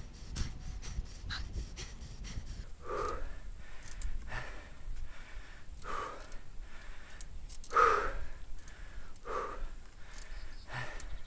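A cyclist breathing hard from the effort of a very steep climb at walking pace, with a loud gasping exhale about every second and a half; the loudest comes about eight seconds in. A low rumble fills the first two seconds.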